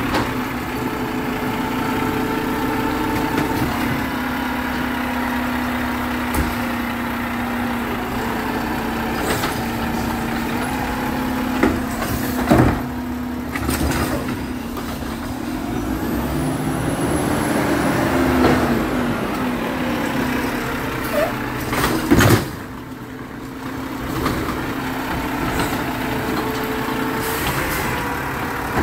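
Garbage truck's diesel engine running steadily, swelling up and back down about halfway through, with a few sharp bangs, two close together before the middle and a loud one later.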